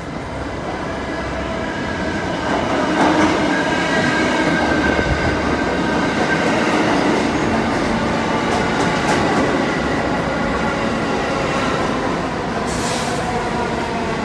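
R46 subway train pulling into an underground station, its wheels squealing on the rails in several steady high tones over the rumble of the cars, growing louder about two to three seconds in as the train comes alongside. A short hiss near the end.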